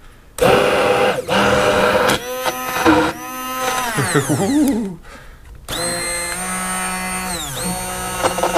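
Aicok five-speed hand blender's motor running at high speed, whipping heavy cream in a tall beaker; its whine bends in pitch as the blade works the thickening cream. It stops briefly about five seconds in, then starts again.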